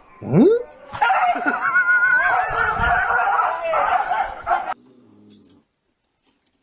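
A dog howls: a short rising yelp about half a second in, then a long wavering howl lasting about four seconds that stops abruptly.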